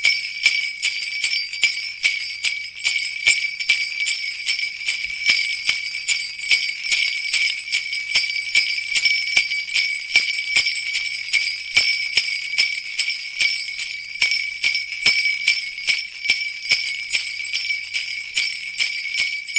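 Sleigh bells jingling continuously in a steady shaking rhythm, about three shakes a second, with a bright ringing shimmer throughout; the jingling stops at the very end.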